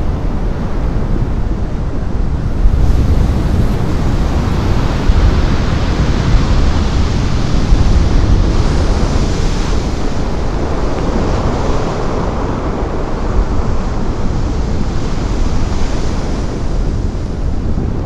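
Heavy ocean surf and wind: a steady rushing roar of large breaking waves with a deep rumble and wind buffeting the microphone, getting a little louder about three seconds in.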